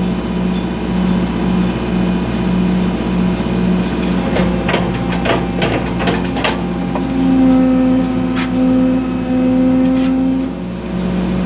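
Excavator's diesel engine running steadily, with a run of sharp clanks about halfway through. Then a higher, pulsing tone joins the engine note for a few seconds.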